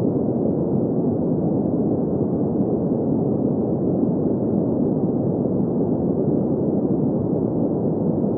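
Green noise: a steady, muffled rushing noise that is full in the lower middle range and has no high hiss.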